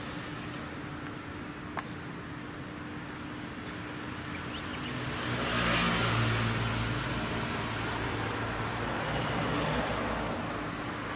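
Engine noise with a low rumble swells up about five seconds in and then runs on steadily, over a steady low hum.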